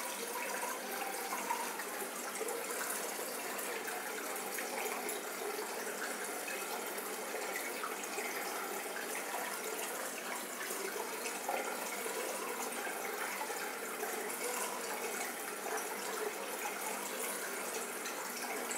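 Aquarium water circulation: a steady rush of running, splashing water with small crackles.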